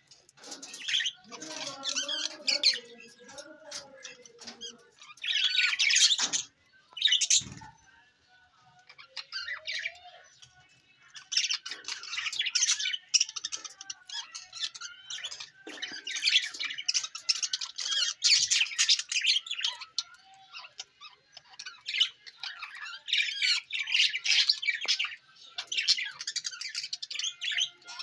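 A flock of budgerigars chattering, with fast high chirps and warbles coming in spells of several seconds and short quieter gaps between them.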